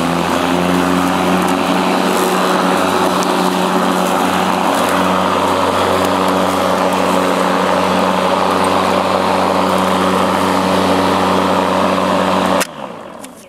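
Earthwise 60120 24-volt cordless electric lawn mower running steadily, its motor and blade giving a loud, even hum. It cuts off suddenly near the end as the mower is switched off.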